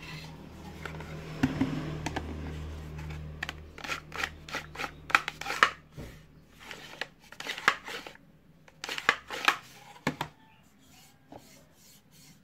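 Wooden parts of a homemade slingshot pistol being handled: the wooden barrel is moved and set down, giving an irregular run of short scrapes and knocks of wood on wood. A low steady hum is under the first half.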